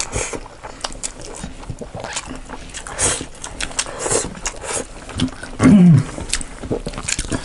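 Close-up eating sounds: food chewed with lips smacking, made up of many short wet clicks and smacks. About five and a half seconds in comes a short, loud, falling hum from one of the eaters.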